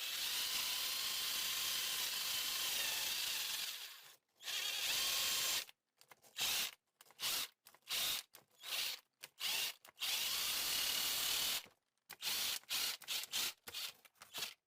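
Power drill scrubbing rust off a metal tool. It runs steadily for about four seconds and stops, then runs in many short bursts as the trigger is pulsed, with one longer run near the end.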